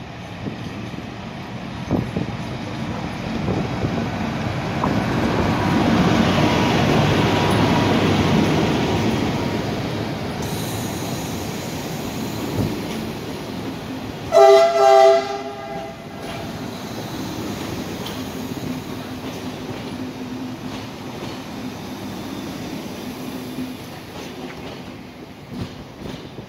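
A passenger train rolls past close by with its wheels clattering on the rails, the rumble loudest about six to nine seconds in. About fourteen seconds in, a train horn gives two short blasts.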